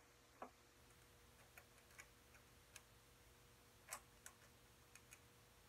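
Faint, irregular small clicks and taps of an HO scale model locomotive being worked onto the rails, the loudest about four seconds in.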